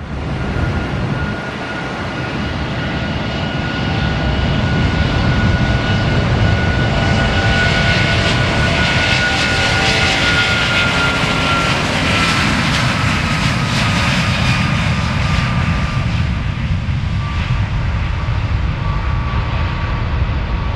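Airliner engines at take-off power as the plane passes: a loud rushing with a high whine. It swells to a peak about halfway through, then the whine slowly drops in pitch as the plane moves away.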